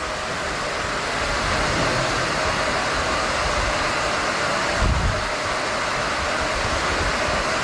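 Steady rushing and grinding noise of a tunnel boring machine's cutterhead breaking through a concrete shaft wall into a flooded shaft, with water churning, and a low thud about five seconds in.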